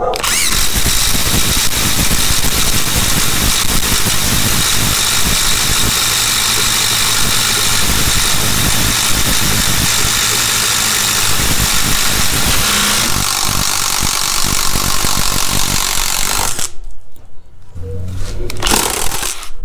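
Two cordless impact drivers, a Craftsman CMCF820 and a Skil ID573901, hammering at once as they bore spade bits into a wooden beam. The sound thins out about 13 seconds in and stops about 16 seconds in, followed by a brief knock.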